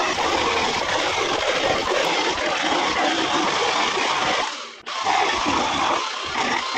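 Ryobi RY18CS20A battery-powered compact chainsaw cutting through wooden pallet boards: the steady rasp of the chain running through wood, briefly dropping out a little past the middle before the cut resumes.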